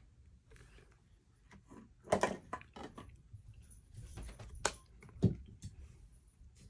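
Mosaic NBA trading cards being flipped through by hand, card sliding against card and being set down on a pile. It comes as a series of short rustles and flicks, the loudest about two seconds in and two more near the end.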